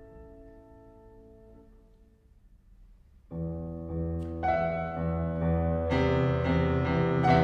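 MIDI-rendered piano: a high chord dies away to near silence, then loud low chords come in suddenly about three seconds in, with more notes added twice after and the music growing louder.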